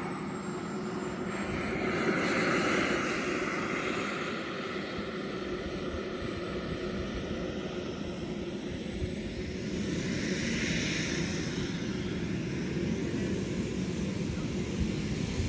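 Behotec 220 model jet turbine running as the Tomahawk Futura taxis on grass: a steady rushing jet hiss with a thin high whine. It swells about two seconds in and again about ten seconds in.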